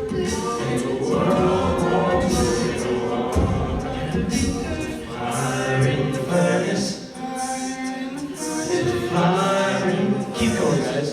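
Male a cappella group singing in close harmony, several voice parts together with no instruments.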